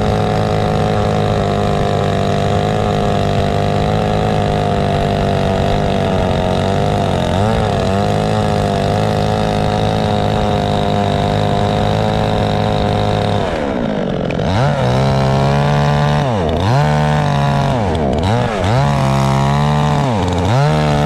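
Two-stroke chainsaw cutting through lake ice, running steadily at high revs. From about two-thirds of the way through it is revved down and up again several times, then it cuts off suddenly.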